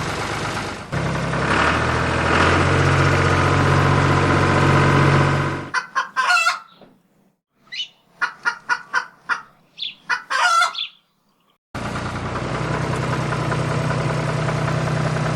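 A steady engine-like drone with a low hum cuts off abruptly about six seconds in. For the next six seconds a chicken clucks in short, irregular calls. Then the drone starts again abruptly.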